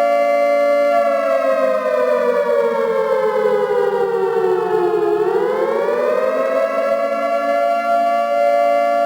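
Civil defence siren sounding a steady note that, about a second in, slides slowly down in pitch, then swings back up after about five seconds to the steady note by about seven seconds. The uploader presents it as a nuclear raid warning.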